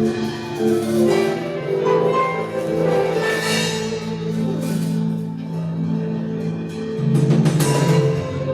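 Background worship music: sustained keyboard-style chords and held notes with light percussion, under a prayer.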